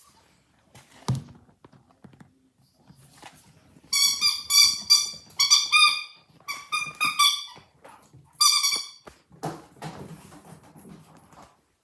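Dog whining in four high-pitched, drawn-out squeals, with a thump about a second in and rustling of movement near the end.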